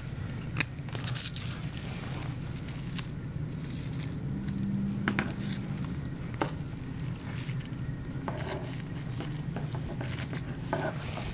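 Foliage and dry flower stems being handled and tucked into an arrangement: rustling and crackling, with scattered sharp clicks, over a steady low hum.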